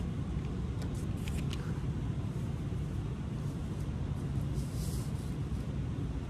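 Steady low rumble of background noise, with a few faint clicks about a second in.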